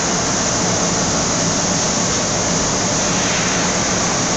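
Steady, unbroken machinery noise with a faint low hum, typical of a hydraulic press line's pumps and power unit running on the factory floor.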